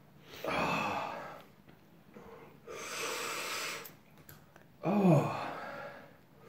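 A man breathing hard through his mouth against the burn of a very hot chilli sauce: two long, noisy breaths, then a short pained groan about five seconds in.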